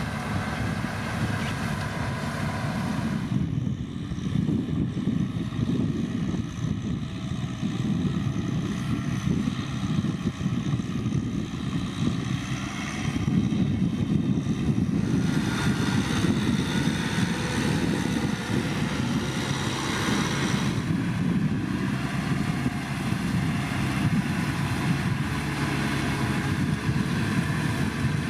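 Kubota M6040SU tractor's diesel engine running steadily under load while ploughing through mud.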